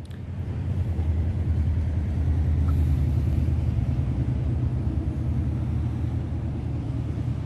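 Low, steady rumble of a motor vehicle's engine running close by on the street, swelling about a second in and then holding.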